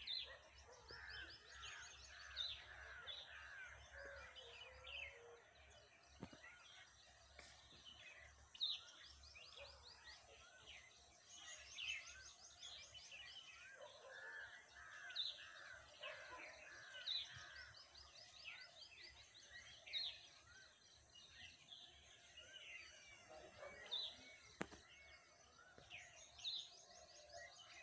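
Faint birdsong: several birds chirping and calling at once, with now and then a rapid trill.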